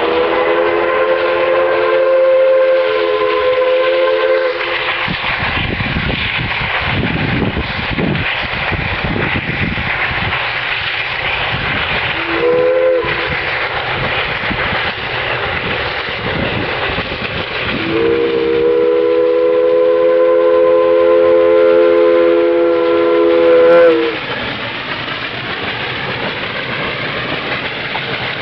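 Steam locomotive whistle sounding three blasts, long, short and long, each a chord of several notes, as the locomotive comes up to a level crossing. Between and after the blasts the train's steady rush and wheel clatter go on as the locomotive and coaches pass.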